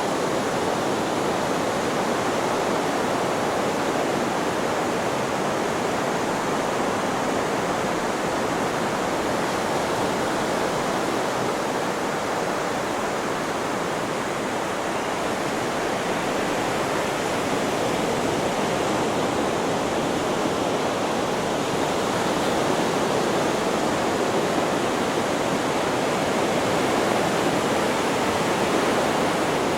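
Steady white-noise hiss, even and unchanging, with no rise and fall of breaking waves.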